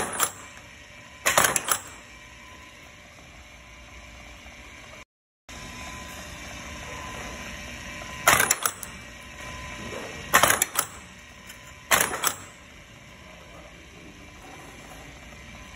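Deluxe Stitcher S2 stitching machine driving heavy-duty 5/8-inch staples through stacked sandpaper sheets: about five sharp mechanical clacks, two close together near the start and three more from about eight seconds in, over a steady hum.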